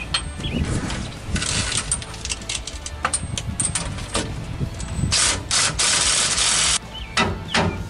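A cordless power tool with a socket runs nuts up the leaf-spring U-bolts on a rear axle. It whirs briefly about a second and a half in, then runs steadily for nearly two seconds after about five seconds and stops abruptly. Clinks of metal handling come in between.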